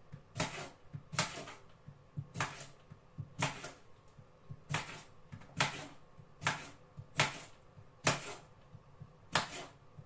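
Kitchen knife slicing through cucumber, each cut ending in a sharp click of the blade on the hard surface beneath, about one or two cuts a second, unevenly spaced.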